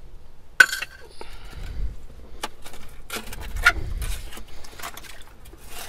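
Antique glass bottles clinking as they are handled and set down in a dig pit. A sharp clink with a short ring about half a second in is the loudest, followed by scattered lighter knocks and rustling scrapes.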